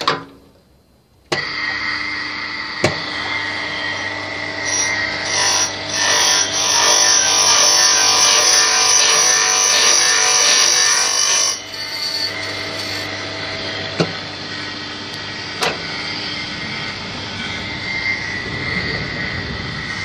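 Electric motor of a broom-handle threading machine switches on about a second in and runs with a steady hum. From about five to eleven seconds it turns louder and harsher as the spinning cutter bites into the wooden handle and cuts its thread. Then the motor runs on, with a few sharp clicks.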